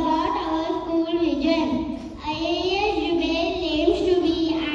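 A young girl singing a melody solo into a microphone, with a short break for breath about two seconds in.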